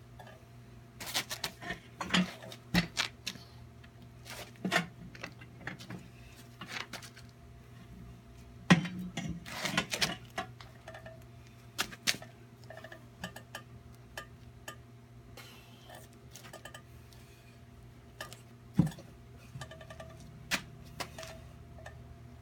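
Harbor Freight manual tire changer's steel mount bar knocking and clanking against the wheel rim and machine while the bead of a low-profile tire is worked over it, in scattered irregular knocks, the loudest about nine seconds in. A steady low hum runs underneath.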